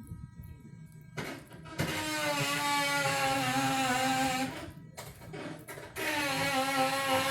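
Electric motor whining at a steady pitch that wavers slightly. It starts up, runs for about two and a half seconds, stops, and starts again near the end.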